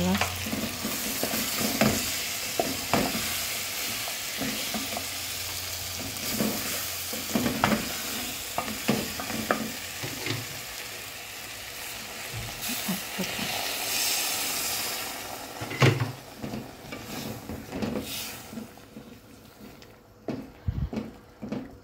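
Wooden spoon stirring beans in tomato sauce in a metal pot, with repeated knocks and scrapes against the pot over a steady sizzle. The sizzling dies away near the end, leaving only scattered knocks.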